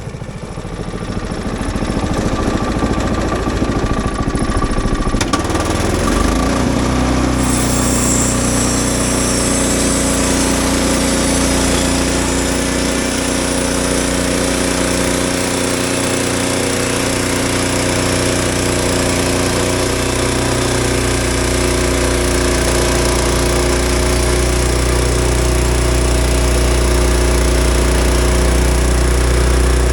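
An engine winds up over the first few seconds, then runs steadily at high speed with a harsh, buzzing note.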